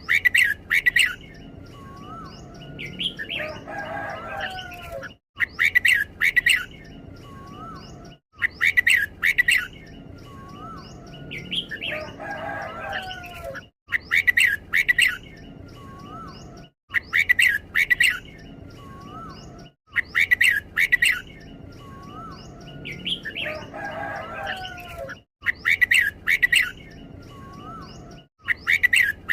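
Red-whiskered bulbul singing short, clear whistled phrases, each given as a quick double, repeated every few seconds: the doubled song style prized in bulbul keepers' birds. Three times a lower, rougher warbling call comes in between the phrases.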